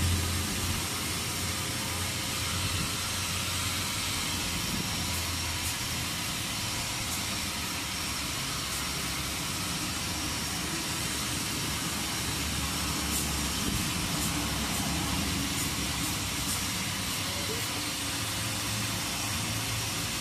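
Steady outdoor background noise: a low rumble with an even hiss over it, and faint high ticks scattered through.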